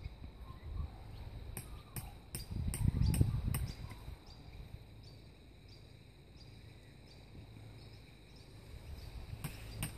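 Hammer driving a tent peg into the ground: a quick run of about six sharp strikes, evenly spaced, a couple of seconds in, then quieter handling, with two more clicks near the end.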